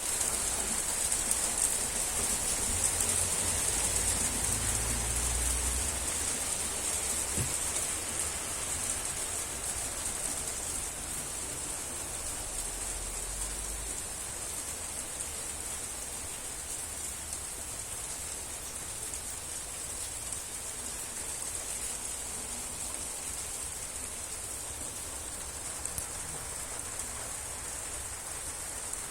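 Steady rain falling on plants: an even hiss of drops, a little heavier in the first several seconds.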